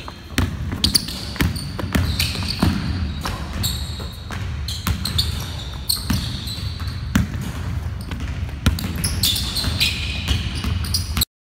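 Several basketballs bouncing on a hardwood gym floor as players dribble, mixed with short high sneaker squeaks as they stop and change direction. The sound cuts off abruptly just before the end.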